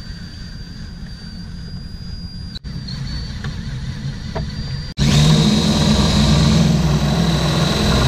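DeWalt cordless drill turning a spade bit through the end of a wooden oar: a steady high motor whine that cuts off abruptly twice, then much louder and rougher for the last three seconds.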